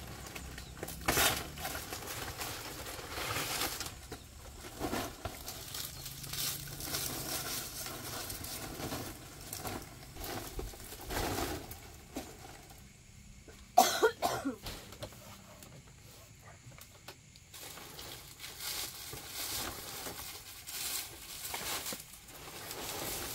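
A small child's hand scratching and scraping in dry dirt and twigs: soft, irregular rustling, with one sharper, louder sound a little past the middle.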